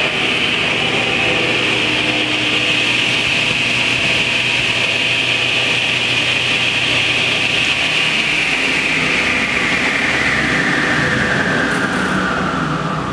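Delta Unisaw table saw driven by its repulsion-induction bullet motor, running at speed with a steady whine, the blade turning in the proper direction with the brush ring set for forward rotation. About two-thirds of the way through, the whine starts falling steadily in pitch as the saw slows down.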